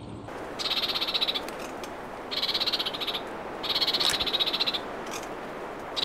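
A frog calling: three bouts of rapid, pulsing croaks, each about a second long, over a steady background hiss.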